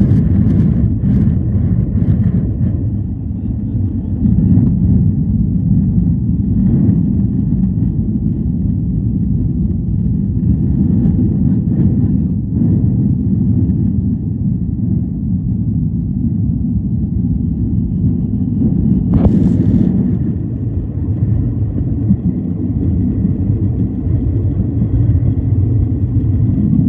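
Jet airliner heard from inside the cabin during its takeoff roll and initial climb: a steady, loud low rumble of the engines at takeoff power. A few knocks and rattles come in the first seconds on the runway, and there is a brief louder noise about 19 seconds in.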